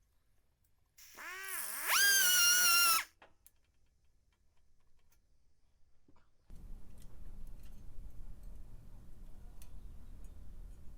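A small electric power tool's motor spinning up quickly to a steady high whine, running for about a second, then cutting off. A few seconds later a steady low hum with faint clicks comes in.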